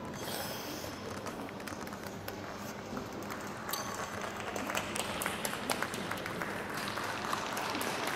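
Audience applauding, the clapping growing denser and louder from about four seconds in.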